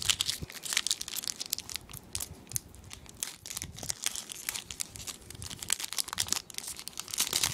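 Foil wrapper of a Pokémon trading card game booster pack being torn open and crinkled by hand: a dense run of sharp, high crackles.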